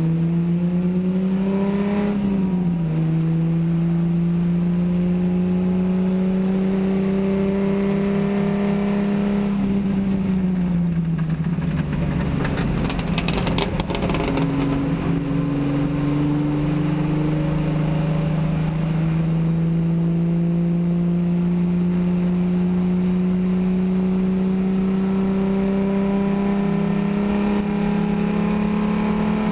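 A race car's engine heard from inside its stripped cabin while racing. The revs climb, drop sharply at a gear change about two seconds in, then climb slowly. They fall around ten seconds in, and there is a burst of clattering around twelve to fourteen seconds before the revs climb steadily again.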